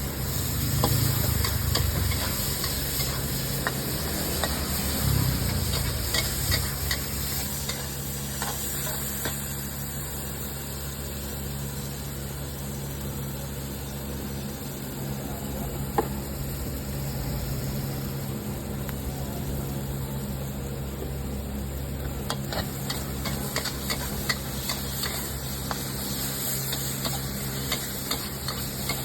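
Food sizzling as it fries, with a metal utensil clinking against the pan now and then, over a steady low hum.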